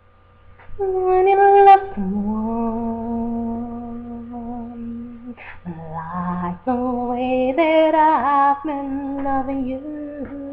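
A woman's voice singing a wordless opening, beginning about a second in: long, drawn-out held notes that slide between pitches, with a wavering vibrato in the middle.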